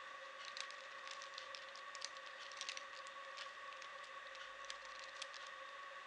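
Plastic Rubik's cube being twisted by hand: quick, irregular clicks of the layers turning, over a steady faint hum.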